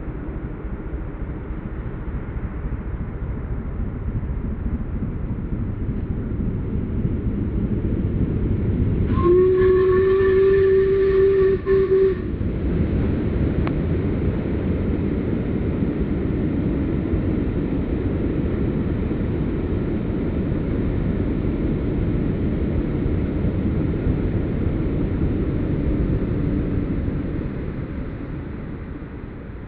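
LMS Black Five (5MT) steam locomotive No. 44932 working a passenger train. Its running noise swells as it draws near and fades towards the end. About nine seconds in, it sounds its whistle in one steady note lasting about three seconds.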